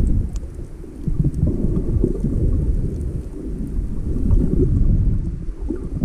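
Muffled low rumble of water moving against an underwater camera housing while snorkelling, surging unevenly, with faint scattered ticks above it.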